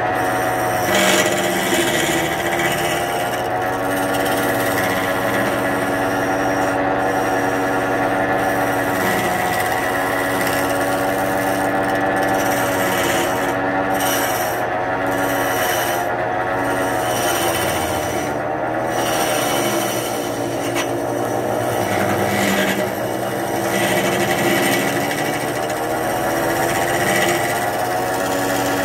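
Wood lathe running with a steady motor hum that wavers slightly in pitch, while a hand-held gouge scrapes and cuts the spinning wooden blank of a large mortar.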